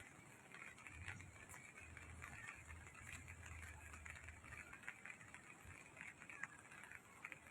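Near silence: a faint background hiss, with a faint low hum from about one second to five seconds in.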